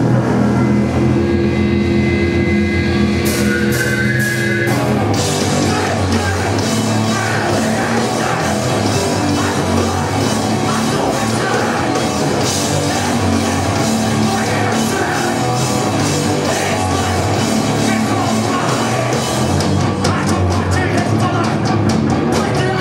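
Live rock band playing loud with electric guitar, bass and drum kit. Held chords ring for the first few seconds with a few drum hits under them, then the full band with drums comes in about five seconds in.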